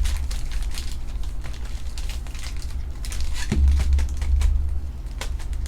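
Foil trading-card pack wrappers crinkling and cards being shuffled by hand, in short irregular crackles over a steady low hum that grows louder about three and a half seconds in.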